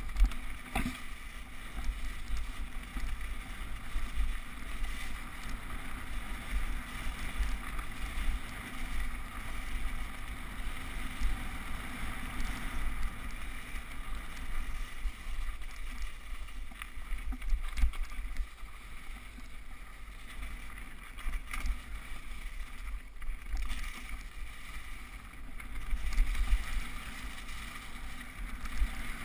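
Bike riding down a snowy, leaf-covered forest trail, recorded on a GoPro Hero HD in its housing: a steady rumble of tyres and wind on the camera, with scattered knocks and rattles over bumps, the biggest just after the start and again near the end.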